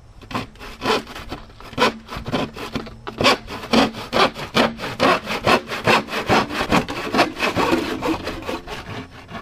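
Hand saw cutting through plastic drain pipe in steady back-and-forth strokes, about two a second, stopping near the end.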